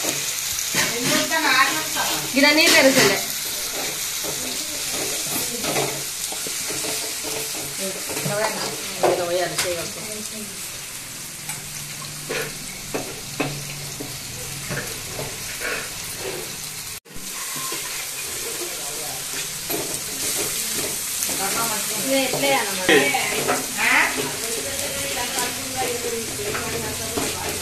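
Curry ingredients sizzling in hot oil in an aluminium pot, with a steel spoon stirring and scraping and clinking against the pot. The sizzle is a steady hiss, and the spoon makes many short clicks over it.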